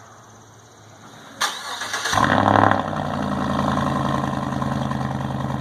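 Chevrolet Silverado engine starting through a straight-piped 3-inch exhaust with the secondary catalytic converter gutted. A short crank about a second and a half in, then it catches with a quick flare of revs and settles into a steady idle.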